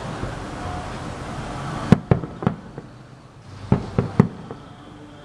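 Aerial firework shells bursting with sharp bangs: three in quick succession about two seconds in, then three more about a second and a half later, over a low background hum.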